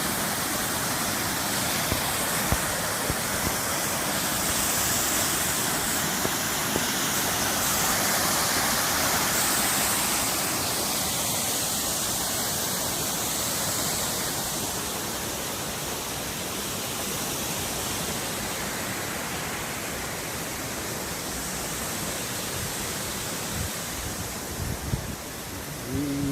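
Loud waterfall: water falling in a steady, dense rush, with a few low bumps near the end.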